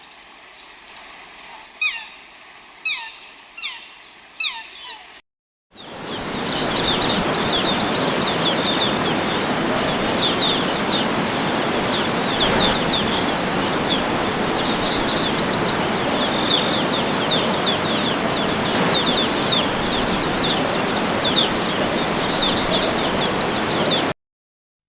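Birds calling: a few short descending chirps over a quiet background, then after a brief cut a steady loud rushing noise with high bird trills repeating over it. It stops abruptly near the end.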